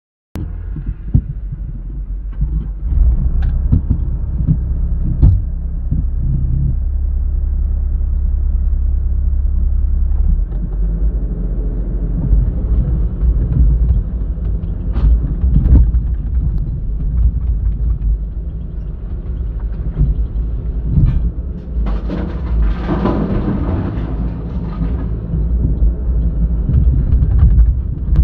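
Heavy construction machinery, an excavator working beside a dump truck: a diesel engine running with a steady low rumble, several sharp knocks and clanks, and a louder, noisier stretch about three-quarters of the way through.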